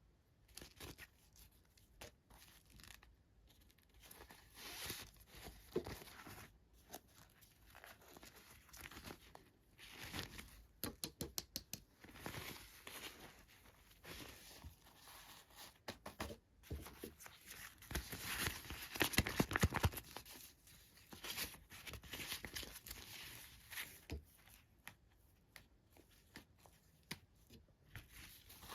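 Packaging being torn open and crinkled by hand, in irregular crackling bursts with a run of quick clicks about eleven seconds in and the loudest tearing about two-thirds of the way through.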